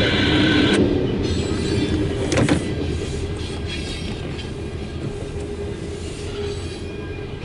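Loaded coal train's cars rolling past on the rails. A high wheel squeal stops about a second in, a single clunk comes about two and a half seconds in, then a steady rumble slowly fades.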